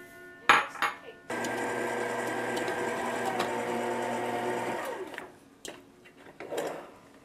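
Electric stand mixer running steadily on its lowest speed for about three and a half seconds, beating flour into cookie dough, then winding down and stopping. A few light knocks come before it starts.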